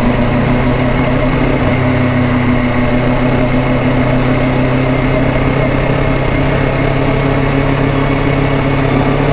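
Kawasaki Ninja 400's parallel-twin engine idling at a steady, unchanging pitch.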